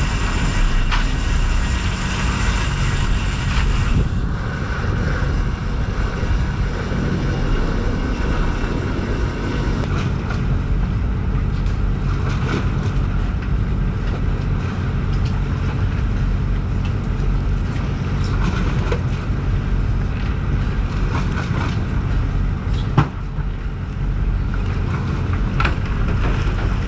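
Sportfishing boat's engine running steadily, a constant low hum under the wash of water and wind, with a single sharp knock late on.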